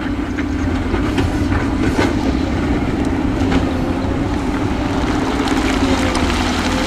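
Heavy diesel earthmoving machinery running steadily with a deep engine rumble, with scattered sharp clanks and knocks of metal and stone over it.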